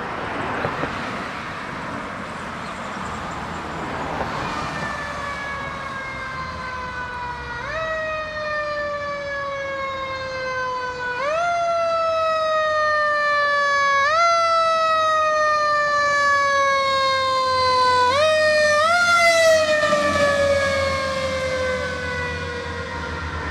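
Siren of a 1995 Seagrave Marauder fire engine responding. Its pitch jumps up quickly and then slides slowly down, over and over every three to four seconds, growing louder as the truck comes nearer. Passing traffic is heard before the siren comes in, and a low engine rumble joins near the end.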